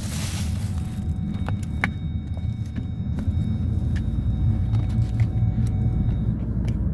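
A steady low rumble with a few light, scattered clicks.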